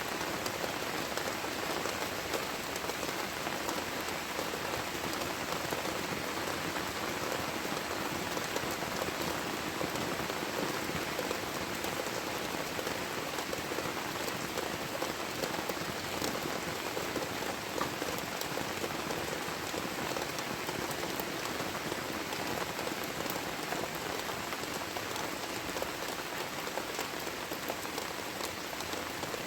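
Heavy rain falling steadily, with a dense scatter of individual drop hits.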